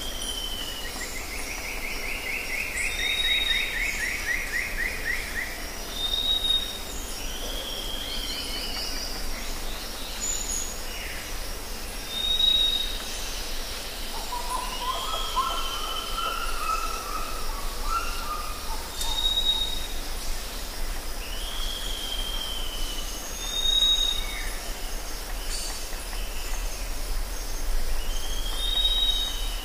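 Forest ambience of several wild birds calling over a steady background hiss. Short clear whistles repeat every few seconds, with a fast falling trill in the first few seconds and a lower warbling phrase around the middle.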